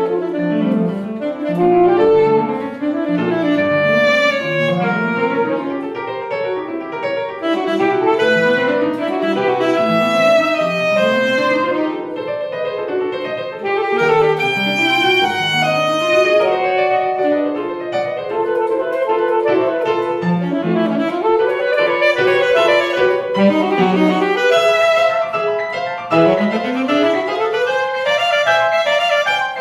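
Alto saxophone and grand piano playing a fast classical duet, full of quick rising and falling runs.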